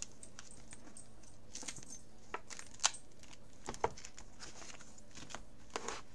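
Clear plastic trading-card binder pages and sleeves being handled: a few light clicks and rustles, the sharpest about three and four seconds in.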